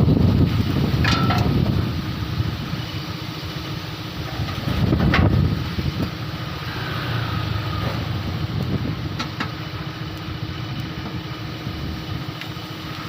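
A small motor running steadily, with a few scattered clicks and a low rumble.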